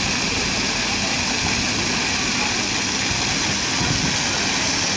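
Steady splashing hiss of a public fountain: rows of water jets falling into a shallow pool that spills over a low stone step. Beneath it runs a low rumble of city traffic.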